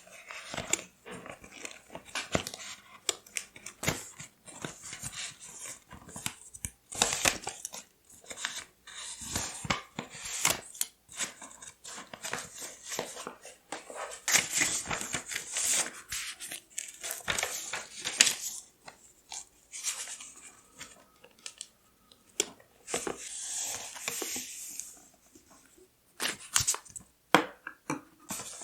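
Close-miked paper handling for scrapbooking: irregular rustling, tearing and cutting of paper, with scattered light taps and clicks.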